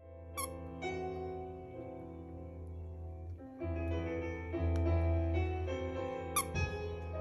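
Background music led by piano, over a steady low bass, beginning abruptly out of silence, with bright high notes chiming now and then.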